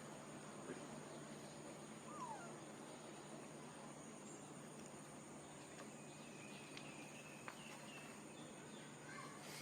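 Faint outdoor ambient noise, a steady hiss with a low hum, with a few faint short calls, one a brief rising note about two seconds in and others near the end.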